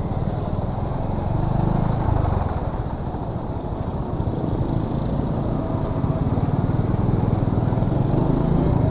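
Honda Win 100 motorcycle's small single-cylinder two-stroke engine running on the move, its rumble swelling slightly about two seconds in and again near the end, under a steady high hiss.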